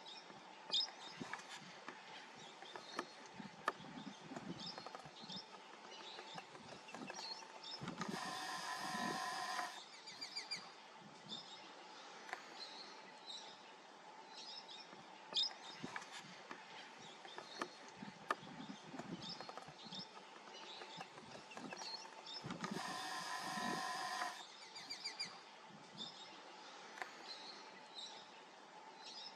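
Scattered bird chirps in dry bush, with now and then a sharp click. Twice, about 8 and 23 seconds in, a steady mechanical whir lasts a second and a half to two seconds: the camera's zoom motor being driven.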